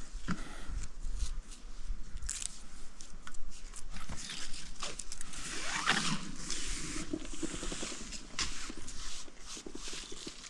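Irregular rustling, scraping and clicking of camping gear being handled and packed.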